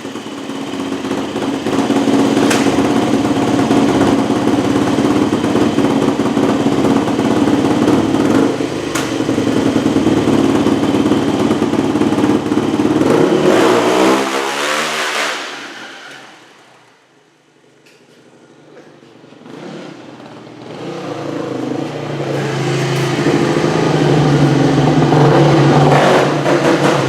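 Dirt bike engine running and revving. About thirteen seconds in its pitch falls away and it drops nearly to quiet, then it builds again and runs loud near the end.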